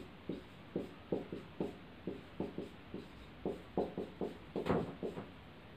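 Marker writing on a whiteboard: a quick series of short pen strokes, about three a second.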